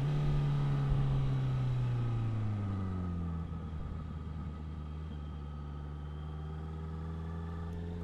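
Honda CBR650F inline-four motorcycle engine through an Ixil aftermarket exhaust, heard from the bike while riding: the engine note falls over the first few seconds as the revs drop, holds steady, then begins to rise again near the end.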